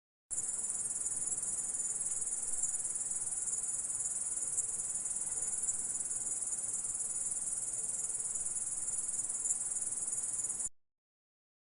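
An insect stridulating: a continuous high-pitched buzzing trill that starts just after the beginning and cuts off suddenly about a second before the end.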